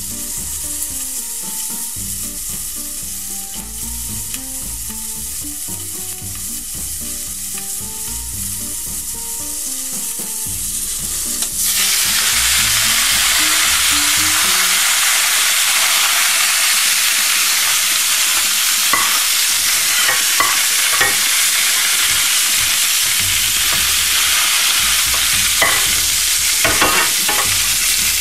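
Crucian carp frying in oil in a frying pan. The sizzle is muffled at first, then turns suddenly louder and brighter about twelve seconds in as the glass lid comes off. Toward the end there are a few short clicks and scrapes of a metal spatula in the pan.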